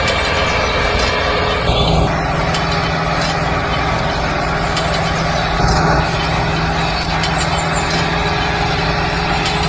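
Massey Ferguson 385 toy tractor running steadily as it pulls a cultivator through sand: a continuous mechanical drone, with a low hum that sets in about two seconds in.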